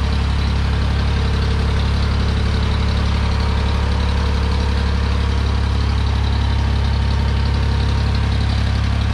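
Engine idling steadily at an even, unchanging speed, with a strong low hum.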